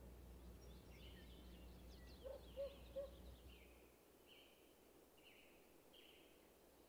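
Faint birdsong over quiet outdoor ambience: twittering chirps, then a run of short buzzy notes about once a second. A low hum drops away about four seconds in.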